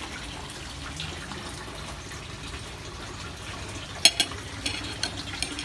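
Steady rush of running water. Near the end a metal fork and spoon clink sharply against the plate several times.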